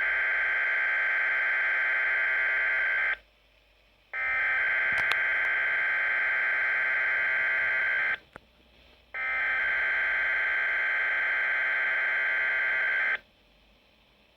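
Weather radio SAME digital header played three times through a weather radio receiver: three bursts of buzzing data tones, each about four seconds long, about a second apart. The header carries the coded Required Weekly Test message that sets off alert-ready receivers.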